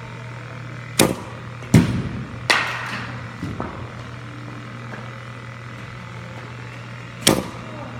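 Batting-cage pitch: a steady machine hum, with three sharp knocks about three-quarters of a second apart starting about a second in as a pitch is thrown and the ball strikes the cage, and another sharp knock near the end as the next pitch comes.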